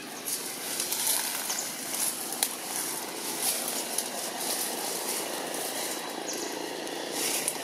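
Steady outdoor background noise with irregular brief high-pitched hissy flickers throughout.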